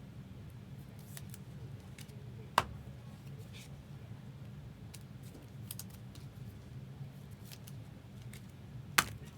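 Trading card packs and cards being handled: scattered small clicks and crinkles over a steady low hum, with two sharp clicks, one about two and a half seconds in and one near the end.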